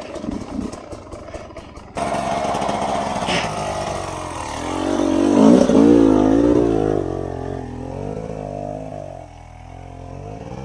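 Two-stroke enduro dirt bike engines revving up and down under load. The sound jumps up suddenly about two seconds in, and the pitch wavers rapidly around the middle, where it is loudest.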